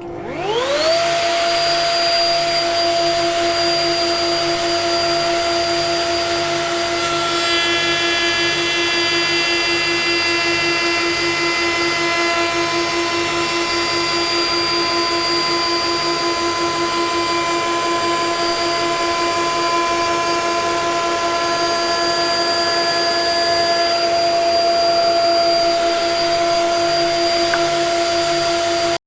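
Trend router in a router table switched on, its whine rising as it spins up in the first second, then running at steady speed while boards are edge-jointed past the cutter. A set of higher tones joins from about seven seconds in and fades out again after about twenty-four seconds.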